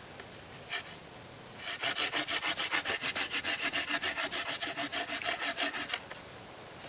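Folding hand saw cutting through a thin dead branch in quick, even strokes, about seven a second, starting about two seconds in and stopping about six seconds in as the cut end comes off.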